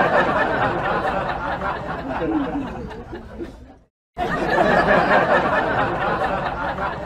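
A crowd of people laughing and chattering together. It fades away, cuts out for a moment about four seconds in, then starts again abruptly at full strength.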